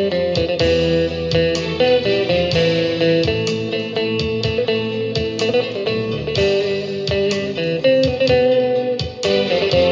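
Guitar music: an electric guitar playing a steady melody of plucked notes.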